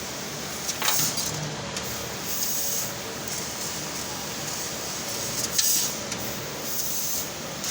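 CNC laser cutting machine running with a steady hiss of air and fan noise, broken by a few short, louder noises about a second in and again near the end.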